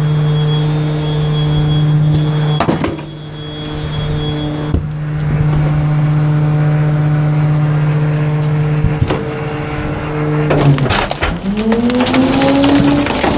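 Rear-loader garbage truck's engine running at a steady raised speed, a constant hum, with a few knocks as a couch is handled at the hopper. About eleven seconds in the engine note dips, then rises as it revs up again amid clattering.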